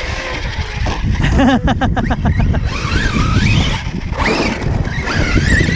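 Large 8S electric RC trucks driving over dirt. Their brushless motors whine, rising and falling in pitch with the throttle, over a steady low rumble.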